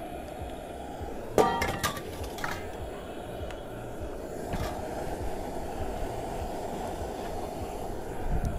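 Steady low roar of a cooking flame turned up high under a pot of boiling curry. A loud metal clank comes about a second and a half in, followed by a few lighter clinks.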